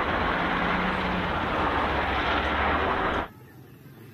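Shacman heavy dump truck driving, its diesel engine running steadily with a low hum under dense noise. The sound cuts off abruptly a little over three seconds in.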